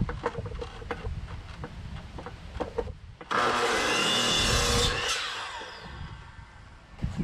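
Light clicks and knocks of lumber being handled, then a power tool runs loudly for about two seconds and winds down with a falling whine.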